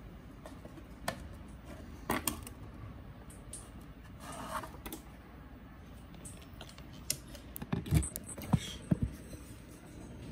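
Handling sounds at an acrylic ant enclosure: scattered light clicks and taps, a brief rustle about four and a half seconds in, and a cluster of louder knocks about eight to nine seconds in, as a cricket is put in as food.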